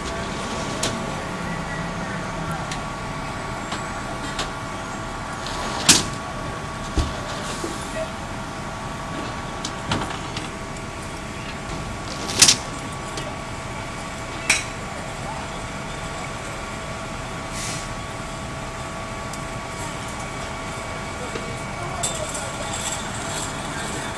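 Fire engines running at the scene: a steady engine drone with two constant whining tones, broken by a few short, sharp bangs, the loudest about six and twelve and a half seconds in.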